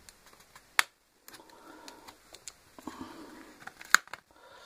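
Sharp plastic clicks with faint rustling between them as a tablet's plastic casing is handled and its back cover prised off. There is one click about a second in and a louder one near the end.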